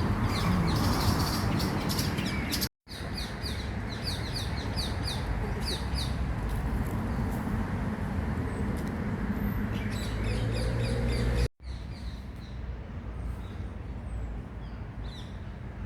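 Many small birds chirping in quick, repeated short calls over a steady low rumble of city background noise. The sound breaks off twice for an instant, at about three seconds and near twelve seconds.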